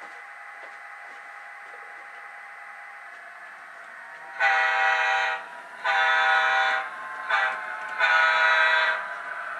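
DCC sound decoder in a model Amtrak Dash 8-32 diesel locomotive, playing through its small onboard speaker: a steady diesel idle, then, about four and a half seconds in, a multi-tone air horn sounding the grade-crossing signal of long, long, short, long.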